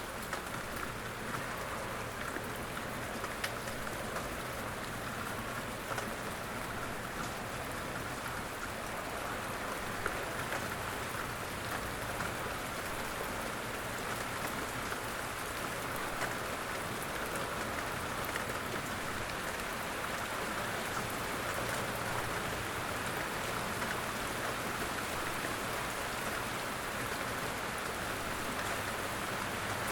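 Steady rain falling: a continuous even hiss with a few sharper ticks of individual drops scattered through it.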